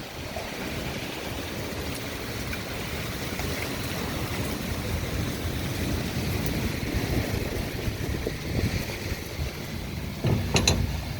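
Storm wind gusting with heavy rain, the wind buffeting the microphone in a steady low rumble over a rushing hiss. A short sharp knock or clatter near the end.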